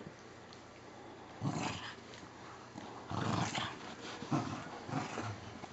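Small dogs growling in short, rough bursts, about five of them starting about a second and a half in, as they play tug of war over a stuffing-less squirrel toy.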